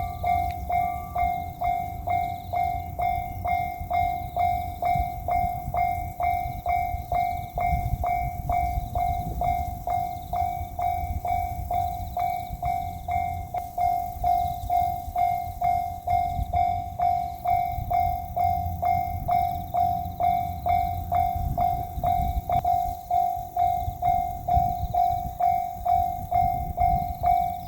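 Japanese railway level-crossing warning bell ringing 'kan-kan' steadily, about two strikes a second, over a low rumble.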